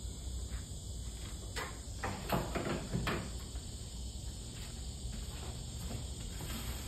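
A few light knocks and clicks, about two to three seconds in, as the chargers are set down and the cardboard box is handled, over a steady high hiss and low hum.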